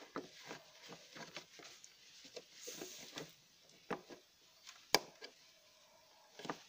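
Small clicks and scraping of a plastic wire connector being worked onto the pins of a washing machine control board, with one sharp click about five seconds in. The connector goes on awkwardly because the board is not the original part.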